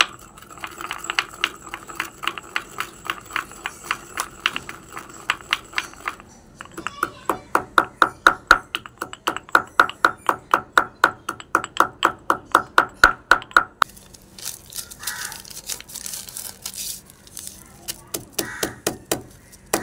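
Small stone pestle pounding in a miniature stone mortar: steady, ringing strikes about four a second, in two runs with a brief pause about six seconds in.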